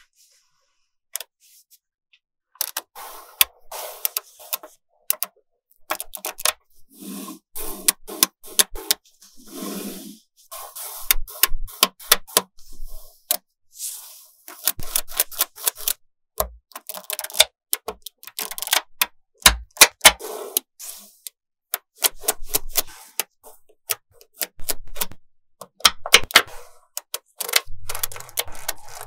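Small magnetic balls clicking and snapping together as strands of them are laid onto a flat panel of balls by hand: irregular sharp clicks, some single and some in quick clattering runs.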